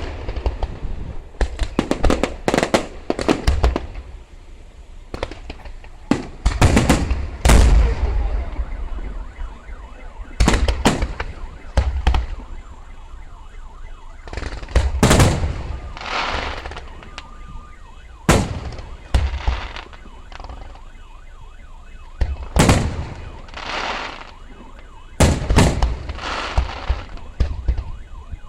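Fireworks show: aerial shells bursting with sharp bangs and crackle, in clusters every second or two with quieter gaps between.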